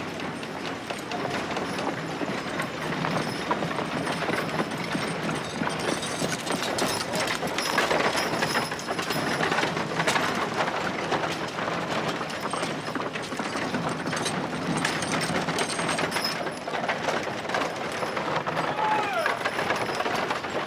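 Old West street ambience: horse-drawn carriages rolling and clattering, with hooves clip-clopping and a murmur of voices.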